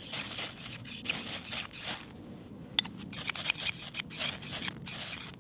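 Ferro rod scraped over and over with a knife, the rod pinned against a feather stick to shower sparks into its wood curls: a quick run of rasping strokes, about two or three a second, with one sharp click near the middle.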